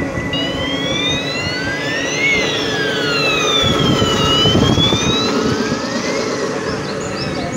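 An electronic siren wailing, its pitch rising and falling slowly about twice, over the steady rumble of a moving vehicle and road noise.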